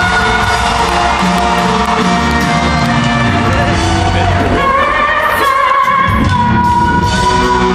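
A woman belting a pop song live over band accompaniment, with sliding vocal runs and a long note held through the second half.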